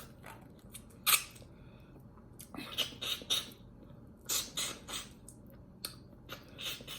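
Close-up wet chewing and lip-smacking of a person eating oxtail: a series of short, sharp mouth sounds, some in quick clusters.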